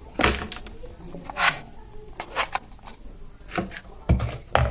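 Irregular sharp clicks and knocks, about eight of them, the loudest two near the end.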